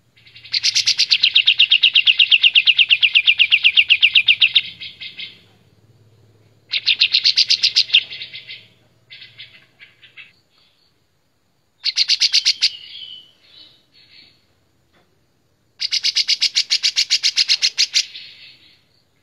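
Kapas tembak bulbul singing in four bursts of fast, loud, rapidly repeated trilled notes, the first lasting about four seconds and the rest shorter, with a few quieter notes in the gaps between.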